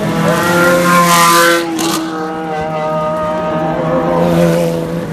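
Race car engine under hard acceleration as it passes close by, loudest in the first second and a half with a rush of noise, then dropping back to a steadier, lower note as it pulls away.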